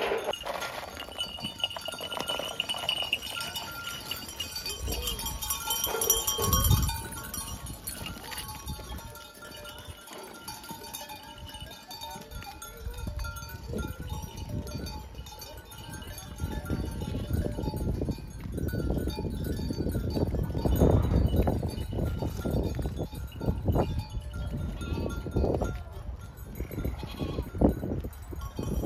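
Mixed flock of goats and sheep moving about and bleating now and then, louder and busier in the second half.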